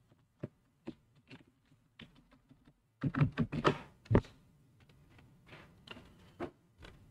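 Computer keyboard keystrokes: a few separate taps, then a quicker, louder run of keystrokes about three seconds in, and more scattered taps near the end.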